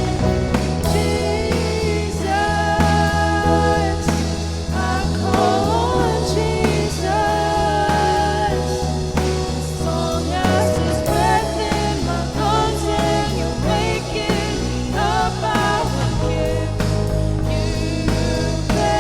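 Live worship band playing a contemporary worship song, with sung lead vocals over drums, bass guitar, keys and acoustic guitar.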